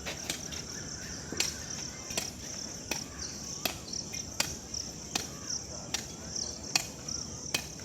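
Sharp knocks at an even pace, about four every three seconds, with crickets chirring steadily behind them.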